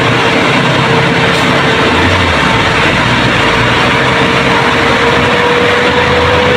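Heavy truck engine running steadily, with a steady whine over a dense rumble that rises very slightly in pitch.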